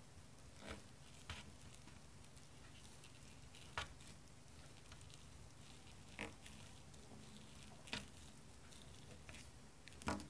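Quiet handling noises: about half a dozen short, soft clicks and taps from a small plastic toy rolling pin and toy tray as modelling dough is pressed and wrapped around the pin, over a low steady hum.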